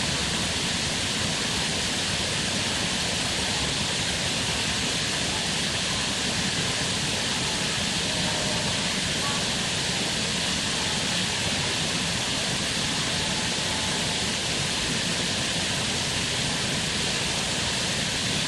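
Steady outdoor hiss, even and unchanging throughout, with no distinct calls, pecks or other events standing out.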